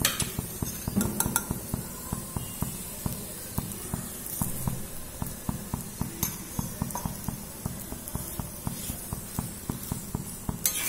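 Steel spatula knocking and scraping on a dosa griddle as a turmeric poli is turned and pressed while it cooks, a few sharp metal clicks over a quick, steady run of softer ticks.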